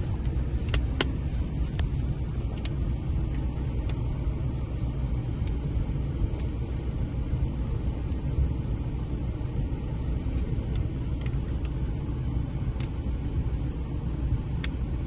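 Scattered short plastic clicks as the laptop's screen bezel clips are snapped into place, over a steady low background rumble.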